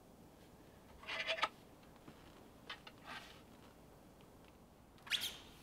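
A metal fork scraping and clinking against a plate a few times while eating, the sharpest clink near the end.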